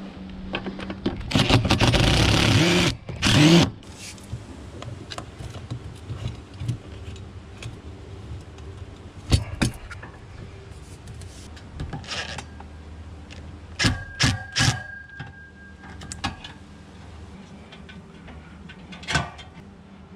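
Cordless impact driver driving a screw through a metal antenna bracket into a wooden wall: one run of about two seconds, then a short final burst. Scattered knocks and clicks of tool and hardware handling follow.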